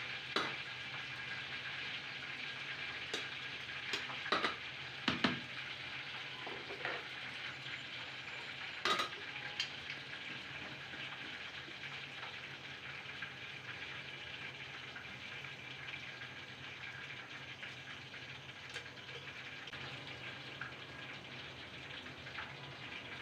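Steady kitchen hiss with a low hum underneath, broken by a few sharp clicks and knocks about four, five and nine seconds in, from handling while raw chicken pieces are spiced in a plastic bowl.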